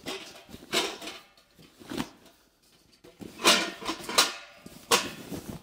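Fabric carry bag rustling and swishing in several bursts as it is worked up over a stainless-steel fire pit, with a couple of sharp knocks among them.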